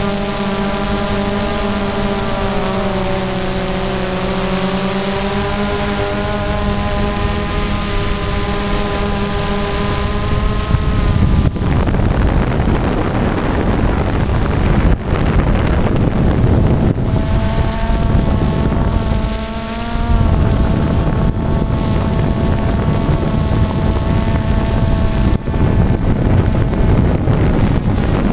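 Small electric motor and propellers of an FPV drone whining, picked up by its onboard camera, the pitch dipping and rising with the throttle. About a third of the way in, rushing wind on the microphone takes over and covers the whine, which comes back clearly for several seconds past the halfway mark.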